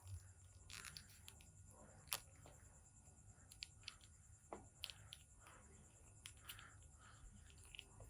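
Faint, scattered clicks and taps of a plastic action figure and its small parts being handled, over a low steady hum.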